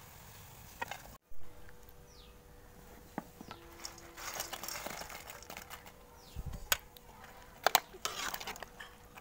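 A metal spoon stirring, scraping and clinking in a steel pot of kadhi as fried pakoras are mixed in, with several sharp knocks against the pot near the end.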